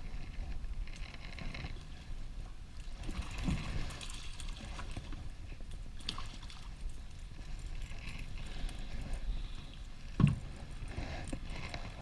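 Water lapping around a small two-man plastic fishing boat, with a steady low wind rumble and a few sharp knocks about 3, 6 and 10 seconds in.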